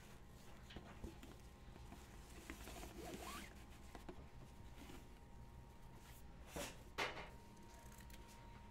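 Ribbon rustling and sliding as it is pulled tight into a bow on a cardboard cake box, then two sharp scissor snips about a second apart near the end as the ribbon is trimmed.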